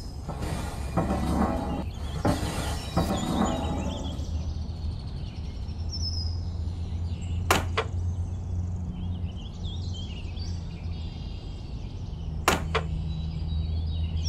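Handling noise as painted model-bridge pieces are pushed into sand and set in place: scraping and rustling in the first few seconds, then two sharp taps about five seconds apart. Under it runs a steady low hum, with a few faint high chirps.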